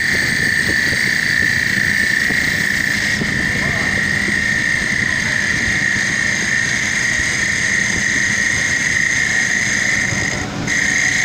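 Mini CNC wood lathe running while turning wooden beads: a steady high-pitched whine over the rushing noise of the cut. The whine drops out for a moment about ten and a half seconds in.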